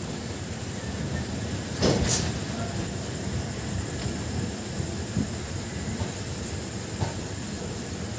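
Passenger train in motion, heard from the open door of a coach as it rolls slowly out of a station: a steady low rumble of wheels on rail, a short louder burst of noise about two seconds in, and a few faint knocks later on.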